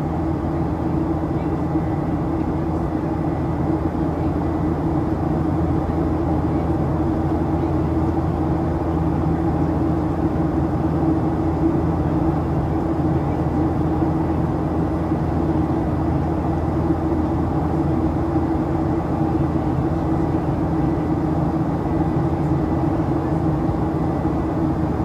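Steady cabin noise of a Boeing 737-800 in flight: an even rush of airflow over a constant hum from its CFM56-7B engines, heard from a forward seat.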